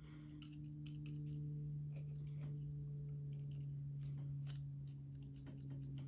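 Irregular light clicks and taps of a metal palette knife working texture paste on a canvas, over a steady low hum.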